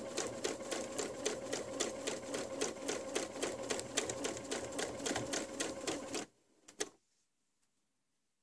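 Electric sewing machine stitching a seam through cotton quilt pieces: a steady motor whine under a rapid, even needle clatter of about five strokes a second. It stops abruptly about six seconds in, followed by a couple of soft clicks.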